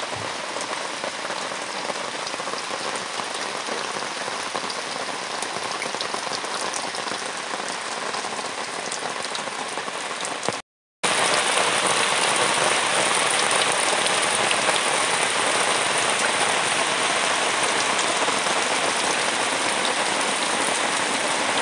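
Steady rain falling on leaves and foliage, with drops splashing into a pan of water. The sound cuts out for a moment about halfway through, then comes back a little louder.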